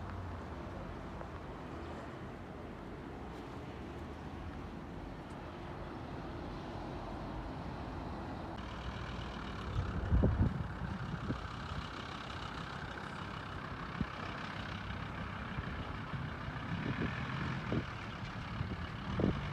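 A motor running steadily with a low drone, joined about halfway by a higher whine, with a few dull thumps about halfway and near the end.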